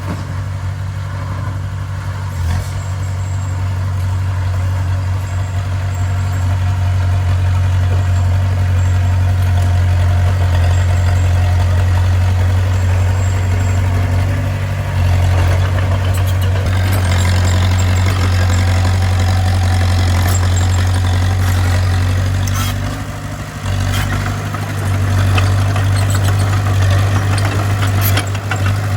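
Bulldozer's diesel engine running steadily with a deep, even hum. About halfway through, a denser clatter joins it, and the engine sound drops briefly near the end before picking up again.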